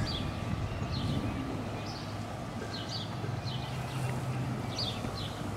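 A low, steady motorcycle engine idle hum, with birds chirping in short high calls over it.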